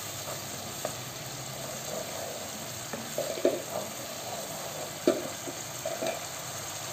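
Tomato-and-spice sauce frying in oil in a nonstick pan, a steady sizzle, while a silicone spatula stirs it and scrapes against the pan a few times, most audibly about three and five seconds in.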